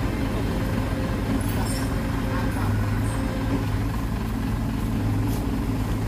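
Heavy diesel earthmoving machinery running steadily with a deep, even engine hum.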